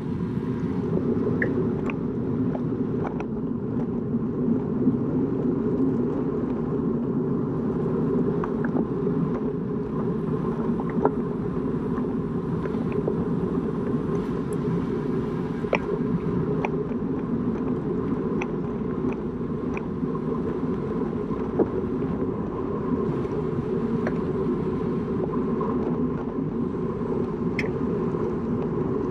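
Steady wind rush and road rumble from a road bicycle riding in a race, with scattered sharp clicks throughout and a faint steady hum.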